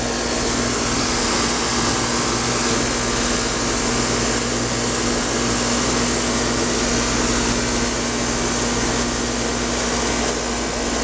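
2009 Payne 4-ton, 13 SEER central air conditioner condenser running: a steady rush of air from the condenser fan over an even low electrical hum from the Copeland scroll compressor.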